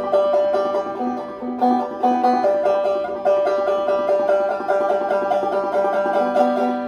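Gold Tone five-string banjo played clawhammer style in a quick, even bum-ditty rhythm, with a repeated drone note ringing through the pattern. Every stroke is played here, with none skipped.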